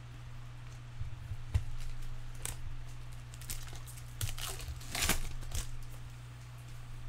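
Trading-card packs being opened and handled: foil wrapper crinkling and tearing and cards rustling in a few short bursts, loudest about five seconds in, over a steady low hum.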